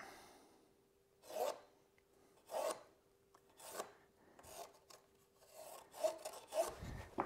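Pencil scratching across a pressure-treated timber board in separate strokes about a second apart as lines are drawn along a square, with busier rubbing and a low shuffle near the end.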